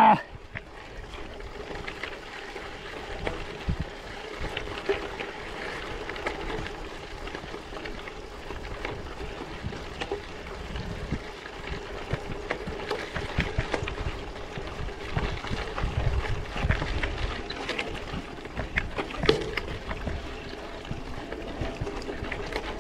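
Bicycle riding over rough off-road ground: the 700x38c tyres crunching over gravel and stones, with frequent small clicks and rattles from the bike.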